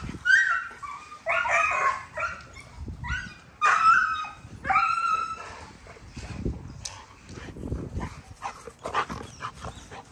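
American bully dogs whining and yipping: a string of short, high calls over the first five seconds or so, then quieter.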